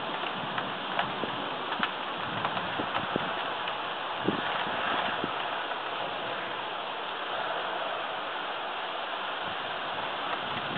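Steady rain falling during a thunderstorm, an even hiss, with a few sharp ticks of drops striking nearby surfaces in the first half.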